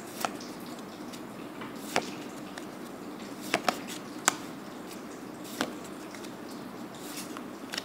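Magic: The Gathering cards being flicked through one at a time in the hand, each card slid off the stack making a short sharp snap. About seven snaps at uneven intervals, two in quick succession midway, over a steady low background hiss.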